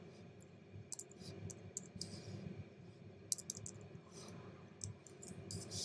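Faint, irregular clicks of keys being typed on a computer keyboard, a few keystrokes scattered over several seconds.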